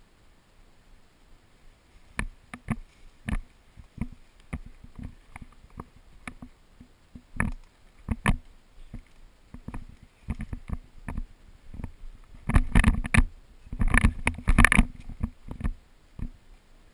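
Footsteps and gear rustling of a player moving on foot: irregular knocks and clatter, one or two a second, turning into a dense, louder run of knocks for a couple of seconds near the end.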